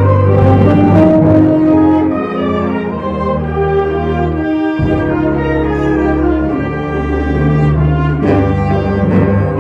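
Wind band playing a piece through, brass to the fore, held chords over a low bass line of string basses. The low notes drop out briefly about five seconds in.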